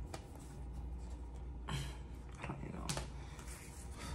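Tarot cards being handled and sorted by hand: a few soft slides and taps of card stock, one at about two seconds in and two more near three seconds, over a low steady room hum.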